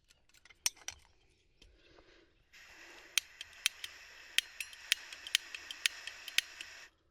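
Gas camping stove: a few clicks, then gas hissing from the burner for about four seconds while the push-button igniter clicks about twice a second, before the hiss stops suddenly. These are repeated attempts to light a stove whose gas flow and igniter are in doubt.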